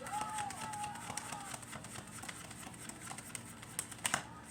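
Tarot cards being handled and shuffled: light scattered clicks and snaps of the card stock, with a sharper snap about four seconds in.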